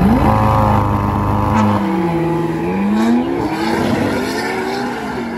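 McLaren MP4-12C twin-turbo V8 and Porsche 911 GT3 RS flat-six launching together in a drag race. The engines rev up hard off the line and are loudest for the first second and a half, then the pitch drops and climbs again through the gear changes as the sound fades away down the strip.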